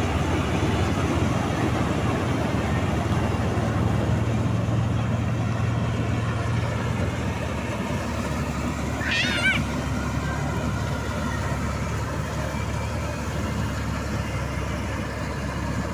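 M.S. 985 combine harvester running steadily as it cuts wheat, its engine and threshing machinery making a continuous drone. About nine seconds in, a short, wavering high-pitched call rises briefly above the machine.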